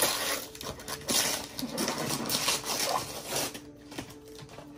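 Gift wrapping paper crinkling and tearing as it is pulled open by hand, in uneven bursts for about the first three and a half seconds, then quieter.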